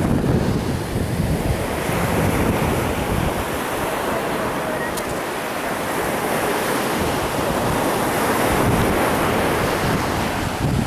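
Surf washing up on a sandy beach in a steady hiss, with wind buffeting the microphone in low rumbles, heaviest near the start and end.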